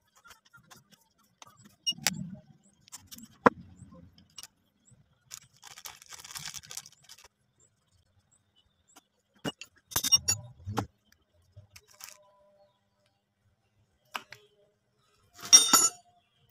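Scattered metal clinks and knocks from hand tools working the cover bolts of a power-steering worm gear box and from the cast housing being handled. The loudest is a ringing clatter of metal near the end.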